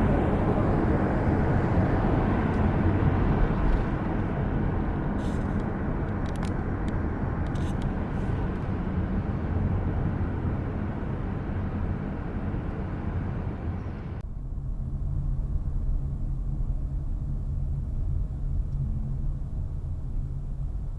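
Car on the move: steady tyre and engine noise with a few faint clicks. About two-thirds of the way through, the higher road noise cuts off abruptly, leaving a low, steady engine hum.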